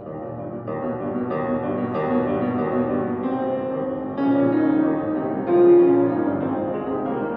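Solo grand piano playing classical music in a reverberant church, notes changing and overlapping, with louder chords about four and five and a half seconds in.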